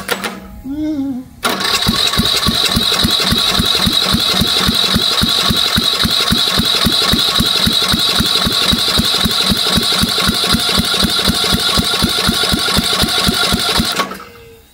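Briggs and Stratton 19.5 hp Professional Series engine cranked by its electric starter. After a brief first touch it turns over steadily for about twelve seconds, with an even chug about four or five times a second under the starter's whine, and never fires, still waiting to draw fuel up. It then stops suddenly.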